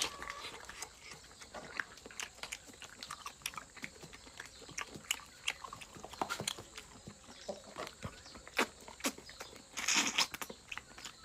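A person chewing and biting chicken close to the microphone, with irregular crunching and smacking clicks. A louder, noisier burst comes about ten seconds in.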